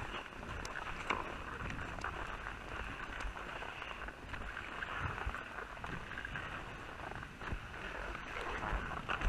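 Alpine skis sliding and scraping over packed, tracked-up snow on a downhill run: a steady hiss.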